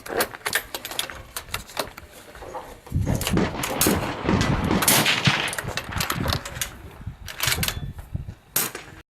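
Firearm shots fired in rapid, irregular succession, with a denser and louder run of fire in the middle. The sound cuts off suddenly near the end.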